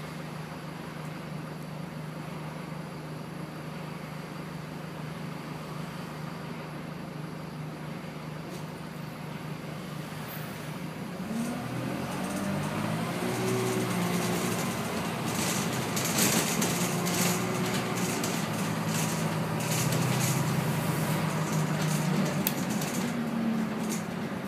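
A TransBus Dart SLF bus's diesel engine, heard from inside the bus, idles steadily for about the first eleven seconds while the bus stands at a red light. It then revs up as the bus pulls away, its pitch rising in steps through the gears, and it runs louder from then on, with scattered knocks and rattles in the middle.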